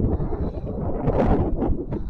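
Wind buffeting the microphone in uneven gusts, with a couple of brief knocks.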